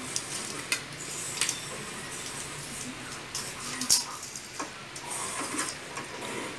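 A cat playing on a tile floor: irregular clicks, taps and scratchy scuffs of its claws and paws on the tiles and of the toy strip being batted along, the sharpest click about four seconds in.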